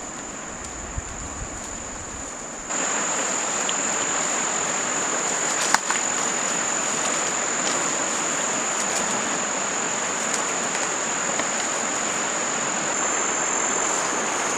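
Insects trilling in one steady high-pitched tone over a steady hiss. About three seconds in, the hiss suddenly jumps louder, and a few sharp clicks follow.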